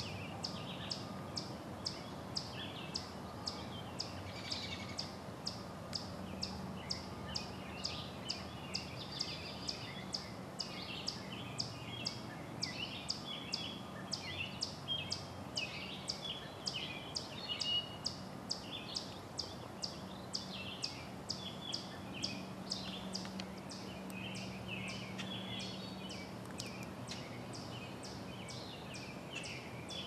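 Outdoor summer ambience: a high, sharp call ticking evenly about three times every two seconds, with scattered bird chirps beneath it. The ticking grows weaker near the end.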